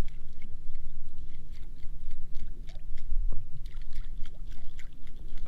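Water lapping and sloshing against the hull of a small drifting boat, with scattered light clicks over a steady low rumble.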